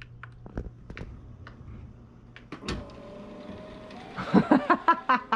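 A few clicks of a wall control button, then a motorised curtain running along its track with a steady electric hum from about three seconds in. Near the end, a person's voice in several short bursts.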